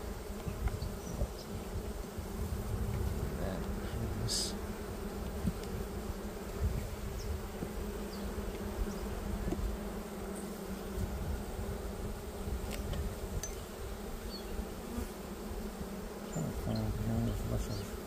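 Honeybees buzzing around an opened hive, a steady hum from many bees at once.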